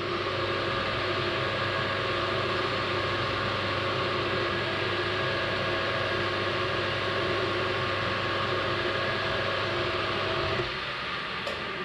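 Metal lathe running, a steady motor and gear hum with a set of fixed whining tones; it quietens and some tones drop out near the end.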